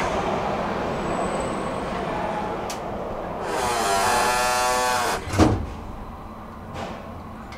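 Elevator doors closing under power: a whirring motor whine for about a second and a half, ending in a loud clunk as the doors shut, over a steady background hum.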